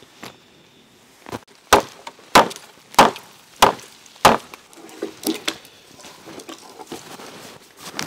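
Hatchet chopping into a thin standing dead tree: five sharp strikes about half a second apart, followed by fainter knocks and rustling as the cut pole comes free.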